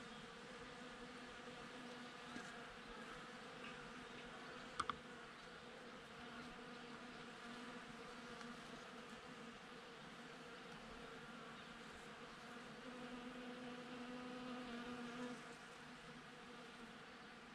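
Honeybees buzzing steadily, a low hum that swells for a couple of seconds near the end. A brief high chirp sounds about five seconds in.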